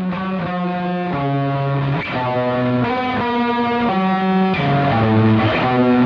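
Background music led by a guitar playing slow, sustained notes that change about once a second, growing slowly louder.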